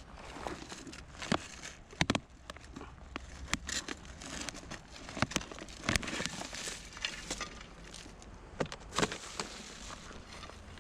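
Irregular knocks and clicks over a crackling rustle, the sharpest pair about two seconds in, with more around six and nine seconds.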